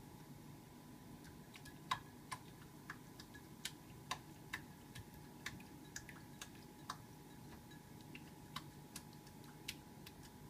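Calico cat pawing at the water in her water bowl: faint, irregular clicks and small splashes as her paw taps the bowl and scoops out water, about two a second.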